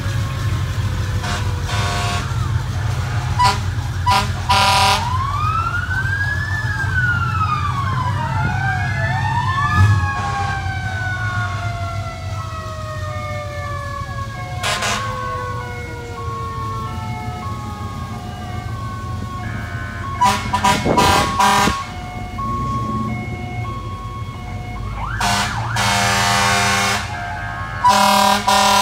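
Emergency vehicle sirens wailing up and down, then winding down slowly over several seconds. Repeated horn blasts sound throughout, the loudest near the end, over a steady low engine rumble.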